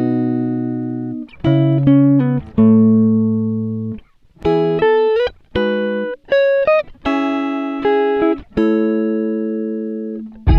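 Background music: plucked guitar chords and single notes, some sliding in pitch, each ringing out and fading, with short breaks between phrases.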